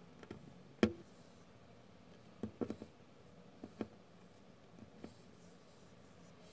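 Hard plastic LEGO Technic parts clicking as an axle and pins are pushed into a bent liftarm and connectors. There is one sharp click about a second in, a quick cluster of clicks around two and a half seconds, two more just before four seconds and faint ones near five seconds.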